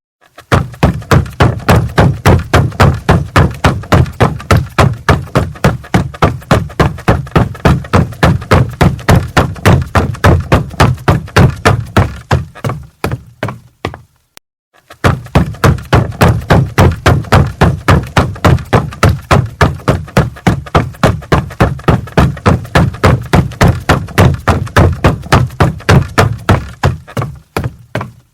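Footsteps running on a wooden floor: heavy, quick thuds about four a second. They die away about halfway through, stop for about a second, then start again.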